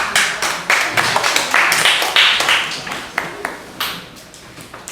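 Audience clapping at the end of a puppet show, thinning out near the end.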